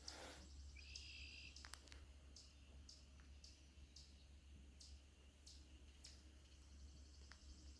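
Faint lakeside wildlife: short high chirps repeating about twice a second, with a brief higher call about a second in, over a steady low hum.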